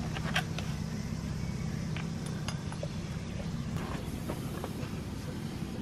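Miniature 7¼-inch gauge railway train running along the track: a steady low rumble of wheels on rail, with scattered light metallic clinks.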